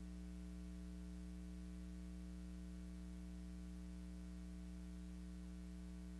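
Steady low electrical hum with a faint hiss: the background noise of a silent film's soundless track, with no sound of its own.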